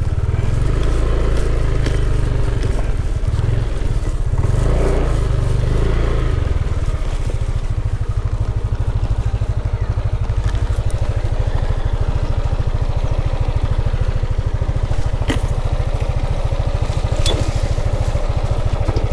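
Motorcycle engine running under way with a heavy low rumble, settling into an even, rapid pulsing after a few seconds. Two sharp clicks about two seconds apart come near the end.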